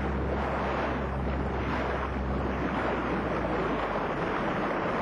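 Steady wind and water noise out on the sea, with a low rumble of wind buffeting the microphone.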